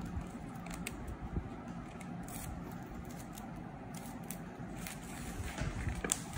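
Small scissors snipping clear plastic packing tape, a few short separate cuts with light crinkling of the tape between them.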